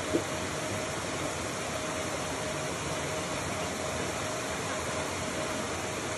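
Steady rushing noise with a faint constant hum, unchanging throughout.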